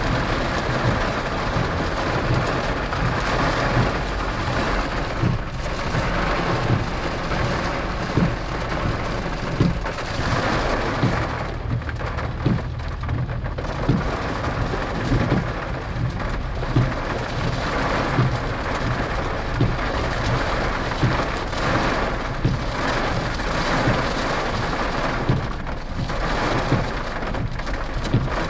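Heavy thunderstorm rain: a steady hiss of the downpour with many irregular thuds of large drops striking.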